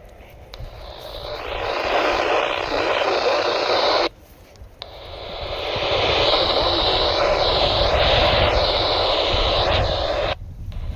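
Radio static from a weather radio receiver: a steady hiss with faint whistling sweeps in it. It swells in, cuts off abruptly about four seconds in, swells back, and cuts off again near the end.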